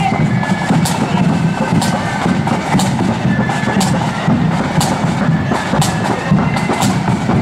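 Marching band's drums beating out a march: side drums rattling over a bass drum beat, with a sharp accented hit about once a second.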